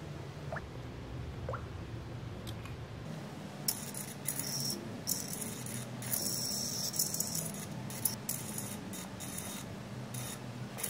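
Micro servo on a tiny RC car whirring in short, repeated high-pitched bursts, starting a few seconds in, as the steering is worked from a Bluetooth phone app.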